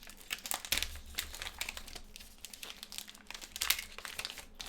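Plastic trading-card packaging crinkling and rustling as cards are handled, with light clicks and a soft thump just under a second in.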